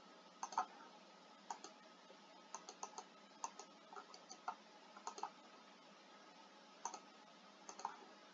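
Faint computer mouse clicks: a dozen or so sharp, irregular clicks, some in quick pairs.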